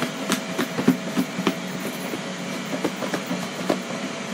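Catfish pieces and fish breading being shaken in a lidded plastic breader bowl: an uneven rattling of knocks and clicks, several a second, as the food hits the plastic walls.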